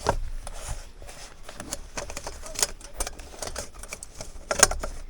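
Irregular light clicks and knocks from handling freshly baked brioche, with a sharper knock at the start and the loudest one near the end.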